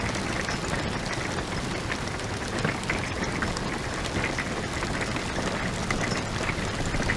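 Hail pelting down steadily: a dense, even patter of many small hits over a constant hiss.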